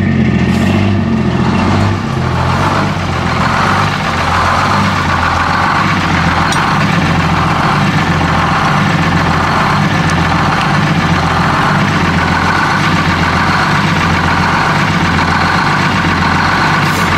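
Detroit Diesel 6-71 two-stroke diesel engine idling steadily as it warms up after a restart.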